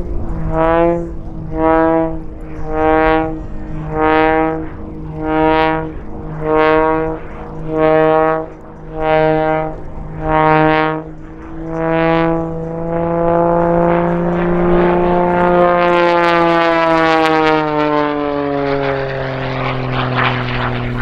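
Pitts aerobatic biplane's piston engine and propeller, its drone swelling and fading about once a second as the plane spirals down. About twelve seconds in it settles into a steady drone that drops in pitch as the plane makes a fast, low pass.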